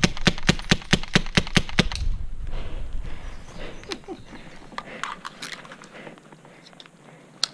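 Airsoft M4 rifle firing a rapid string of shots, about seven sharp cracks a second for roughly two seconds, then stopping; a few faint clicks and one sharp click follow near the end.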